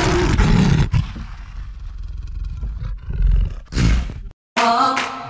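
An animal roar sound effect, loudest in the first second, then a low rumble and a second loud burst about four seconds in. It cuts out briefly, and music with singing starts near the end.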